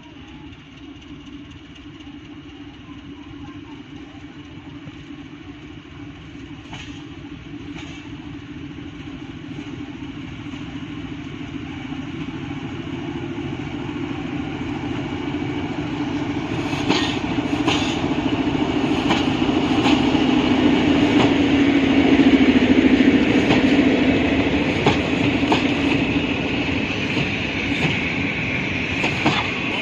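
SM42 diesel-electric locomotive hauling a train and drawing nearer, its engine drone growing steadily louder until about two-thirds through, then easing slightly. From about halfway, the wheels clack rhythmically over the rail joints.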